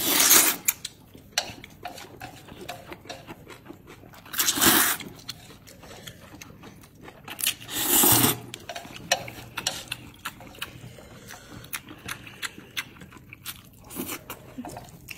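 A person slurping thick noodles three times, at the start, about four and a half seconds in and about eight seconds in, with wet chewing and lip-smacking clicks in between.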